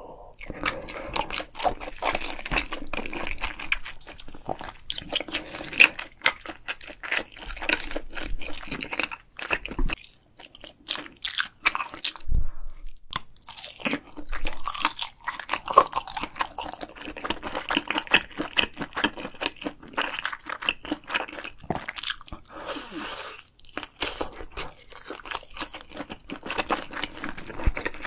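Close-miked eating sounds: a person chewing and slurping saucy ramen noodles and tteokbokki, with many short, sharp, wet clicks of mouth and food.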